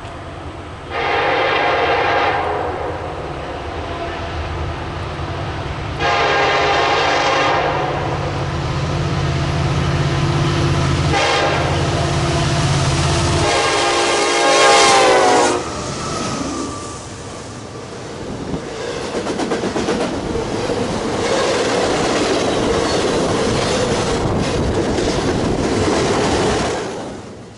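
Norfolk Southern EMD SD70ACe diesel locomotive sounding its horn in the grade-crossing pattern, long, long, short, long, over the low rumble of its engine. The last blast drops in pitch as the locomotive passes. Then double-stack container cars roll by with wheels clattering on the rails, fading near the end.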